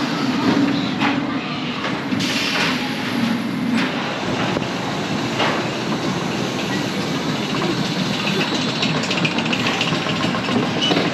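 Mack Rides wild mouse roller coaster car rolling on steel track with a steady rumble, then, about three quarters in, a fast clatter as the car reaches and engages the chain lift.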